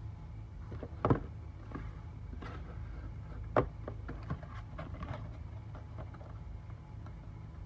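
Hands handling a shoebox and rubber slides during an unboxing: scattered clicks and taps, with two louder knocks about a second in and about three and a half seconds in, over a steady low hum.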